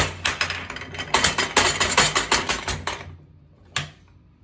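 Steel parts of a downhole running tool clicking and knocking as it is handled in a vise: a quick, irregular run of sharp metal clicks for about three seconds, then a single knock near the end.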